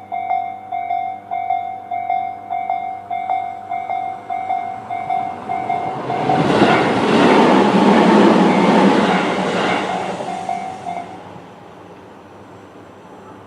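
Japanese level-crossing electronic alarm bell, Tobu's slow-tempo type C tone, ringing about two strikes a second. About six seconds in, a Tobu 20400 series electric train rumbles over the crossing for about five seconds, loud wheel and rail noise drowning the bell. The alarm cuts off at about eleven seconds as the train clears.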